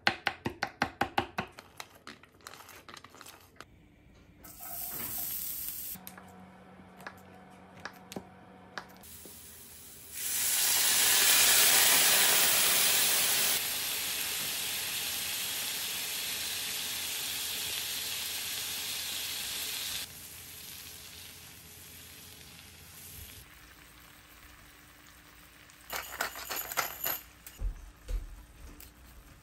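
A knife chopping garlic on a wooden board in quick strokes, then garlic frying in butter in a pan. The frying is loudest for the first few seconds after it starts, then settles into a steady sizzle and fades.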